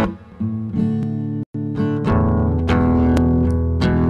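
Guitar chords strummed as a song's intro, ringing on between strokes, the strums coming about every half second after a sparser start. The audio cuts out completely for a split second about a second and a half in.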